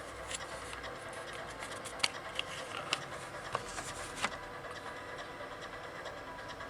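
Steady background hum with about six short, light clicks in the first two-thirds; no ringtone melody is playing.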